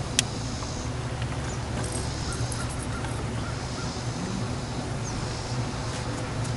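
Steady low wind rumble over the microphone, with one sharp click about a quarter second in and a few faint ticks around two seconds in.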